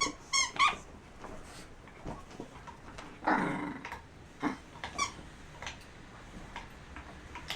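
A dog's rubber squeaky toy squeaking: three quick squeaks at the start, then two more about half a second apart midway, with a few fainter ones after. A dog gives a short growl between the squeaks.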